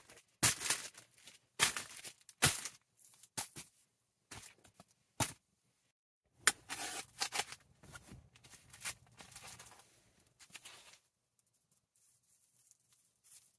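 Plastic food packaging being torn open and crinkled by hand: a series of short ripping rustles in the first five seconds or so, then a few seconds of softer rustling and handling.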